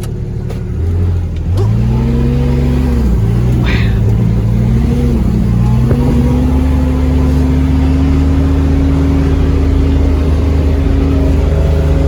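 Vehicle engine pulling away and accelerating. Its pitch rises and falls unevenly over the first few seconds, then settles into a steady run that slowly climbs.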